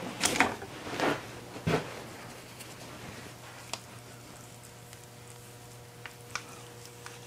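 Three short rustling handling noises within the first two seconds, then a quiet room with a steady low hum and a few faint ticks.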